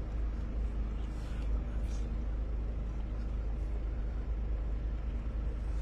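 Volkswagen Passat CC's 2.0 TDI common-rail diesel engine idling, a steady low rumble heard from inside the cabin.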